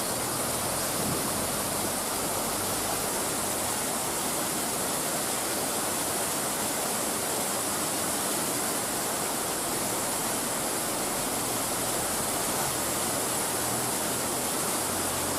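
Waterfall: the steady rushing hiss of falling water, unbroken and even in level.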